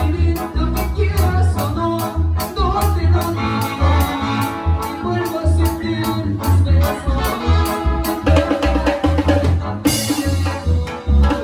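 Latin group music with keyboard, bass and percussion over a steady beat with shaker-like ticks, and a crash about ten seconds in.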